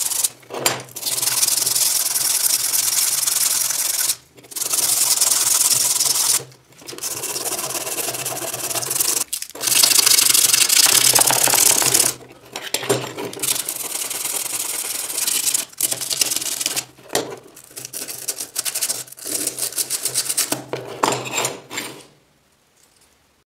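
Abrasive rubbing on the iron handles of an antique areca nut cutter: fast scratchy strokes worked by hand, in spells of a few seconds with short pauses, stopping near the end.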